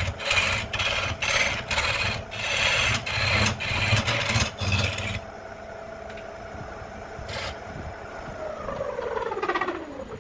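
Rhythmic scraping strokes against spinning wood on a wood lathe, about two a second, over the lathe's steady motor hum. The strokes stop about halfway through, and near the end the hum falls in pitch as the lathe winds down.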